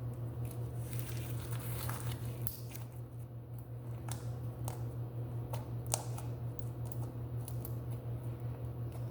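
A steady low hum with scattered soft clicks and ticks over it, and one slightly louder click about six seconds in.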